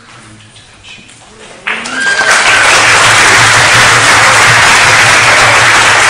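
An audience bursts into loud applause about a second and a half in, after a quiet moment, and the clapping keeps up steadily.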